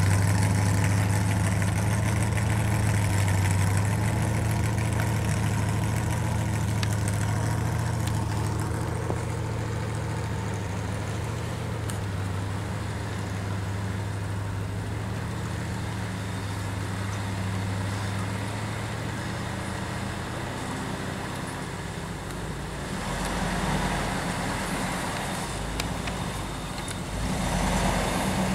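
Truck engine running steadily at low revs, a low even hum. Near the end a rushing noise swells twice over it.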